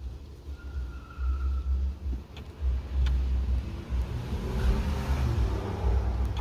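2016 Chevy Cruze's engine running, with the engine noise swelling briefly about four to five seconds in.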